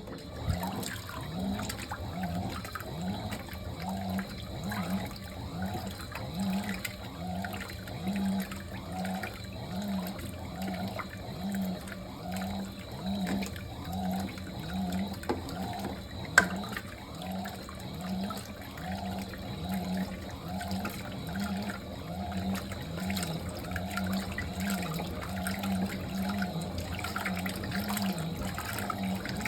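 Fisher & Paykel MW059NZ top-loading washing machine running with water swishing in the tub and a regular pulsing motor rhythm of about one and a half strokes a second, starting just after a quiet pause. A single click comes about halfway through.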